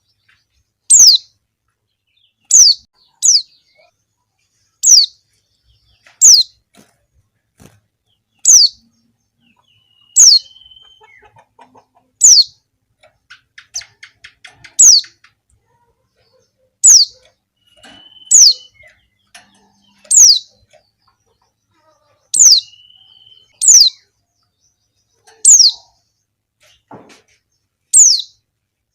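Female white-eye (pleci) giving loud, single, sharply falling call notes, one every second or two, with softer twittering in some gaps. This is the female's call that is used to draw a response from male white-eyes.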